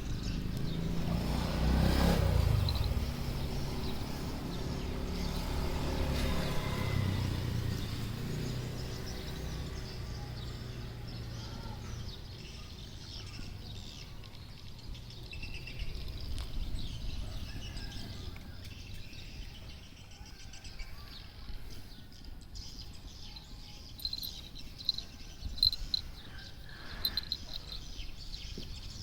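Outdoor ambience: a low rumble that swells twice in the first several seconds, then a quieter stretch, and near the end a few short, high bird chirps.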